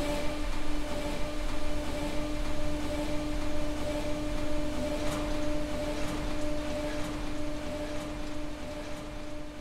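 A steady machine-like hum holding one constant pitch over a continuous rushing noise, growing slightly fainter near the end.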